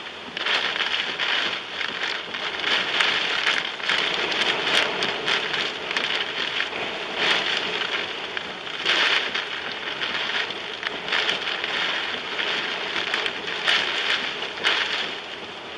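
Tornado-driven wind and heavy rain beating on a car driving through the storm: a dense rushing noise that surges and eases, with frequent sharp ticks of rain striking the car.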